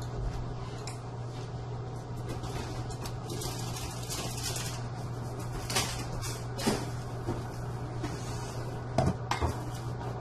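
Kitchen cookware clatter over a steady low hum: a few sharp knocks around the middle, then a quick cluster of clinks near the end as the lid comes off the pasta pot and a slotted spoon goes into it.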